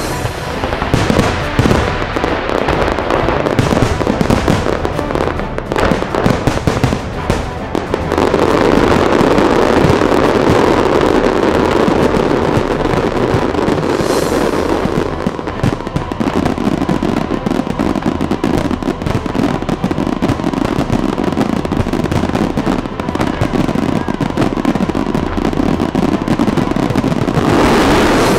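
Fireworks display going off: separate sharp bangs and cracks at first, then from about eight seconds in a dense, continuous barrage of crackling bursts, with music underneath.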